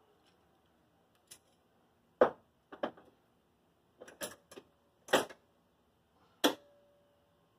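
Irregular sharp clicks and knocks of hand tools and parts against a car's sheet-metal body, about a dozen in all. The loudest comes about two seconds in, and the last one rings briefly like struck metal.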